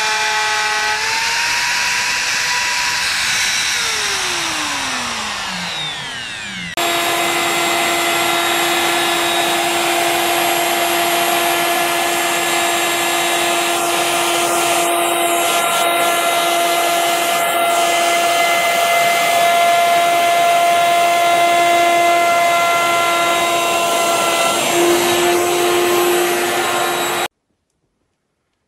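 Einhell plunge router's motor whining at speed on a wooden cutting board. In the first few seconds its pitch rises slightly, then falls steadily as the motor spins down after being switched off. After an abrupt change about 7 s in, the router runs again at a steady pitch and stops suddenly about a second before the end.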